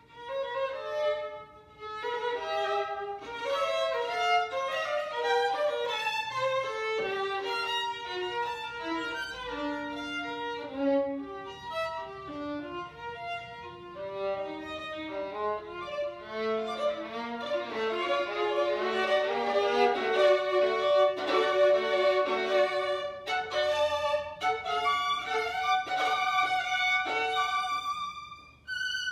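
Violin playing a classical solo passage in quick runs of notes. It starts out of silence and breaks off just before the end.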